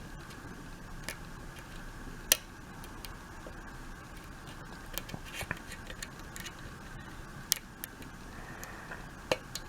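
Faint, scattered clicks of a lock pick working the pin stacks of a Binco mortise cylinder held under turning tension during single-pin picking, with one sharper click a couple of seconds in.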